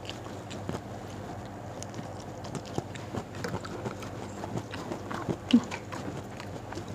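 Eating sounds: chewing and lip smacks, with small clicks as fingers pick up rice and sambal. A short hum of the voice comes about five and a half seconds in.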